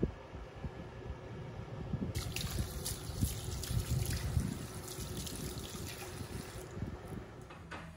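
Water running, starting about two seconds in and stopping about a second before the end, over a low rumble with small bumps.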